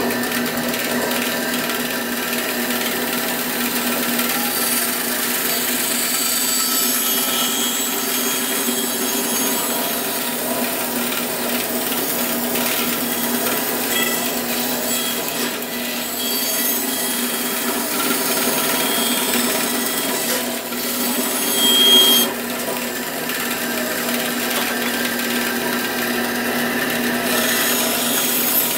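Bandsaw running and sawing: a steady whirring hiss with a constant hum underneath, swelling briefly louder about 22 seconds in.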